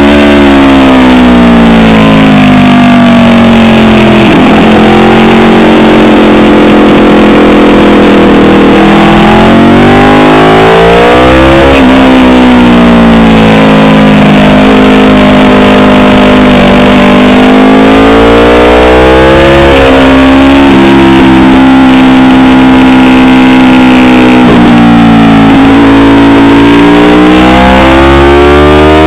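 Aprilia RSV4 superbike's V4 engine at racing speed, heard from the bike itself. Its pitch climbs through the revs, holds, then drops under braking and downshifts several times over, around 9, 18 and 25 seconds in and again at the very end. Wind rushes loudly over the microphone throughout.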